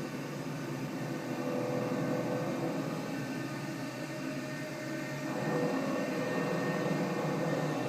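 CNC vertical machining center running steadily while milling a bottle mould, a continuous mechanical whir that grows a little louder about five seconds in.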